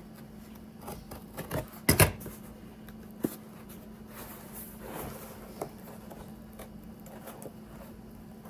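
Packaging being pulled and handled by hand while freeing an unopened mug, with scattered clicks and light knocks; the loudest is a sharp double knock about two seconds in. A steady low hum runs underneath.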